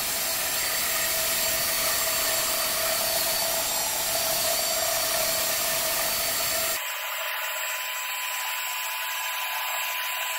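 Multi-disc floor sanding machine running on a parquet floor: a steady grinding hiss with a faint whine. About two-thirds of the way through the sound changes abruptly to a thinner hiss with a different whine.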